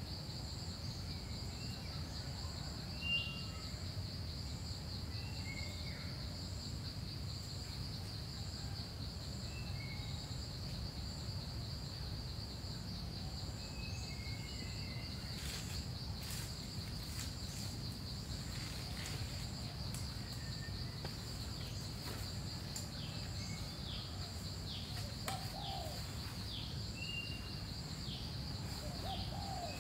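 Forest ambience: a steady high insect drone with a fainter, higher insect call pulsing evenly over it, and scattered short bird chirps. From about halfway in, a series of short clicks and rustles joins it.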